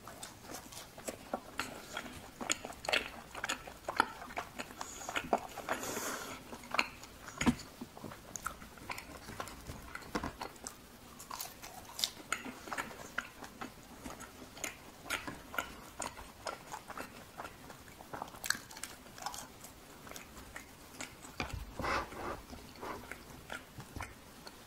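Close-miked chewing of a fried cheese ball: crisp crunches of the crumb coating and many sharp, wet mouth clicks.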